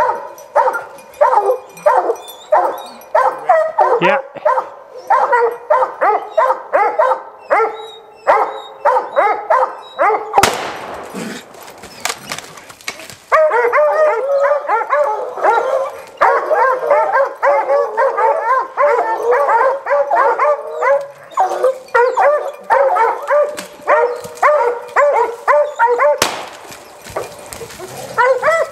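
A pack of hunting hounds baying and barking without pause at a mountain lion treed in a pine, several voices overlapping many times a second. About ten seconds in, a rushing noise briefly drowns the baying for two or three seconds.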